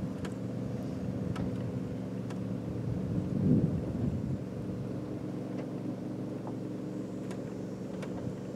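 A boat motor running at a steady speed, with a gust of wind buffeting the microphone about three and a half seconds in.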